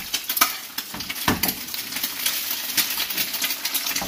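Two eggs frying in canola oil in a pan, sizzling and crackling steadily, with a few clicks and a knock of a utensil against the pan.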